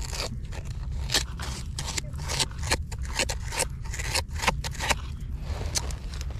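A hand and a small hand scraper digging and raking through coarse, shelly sand and gravel beside a rock: a quick, irregular run of gritty scrapes and crunches over a steady low rumble.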